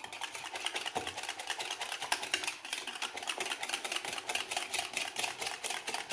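Beaten eggs being whisked briskly with a utensil in a plastic bowl: a rapid, even clicking of several strokes a second as the utensil strikes the bowl.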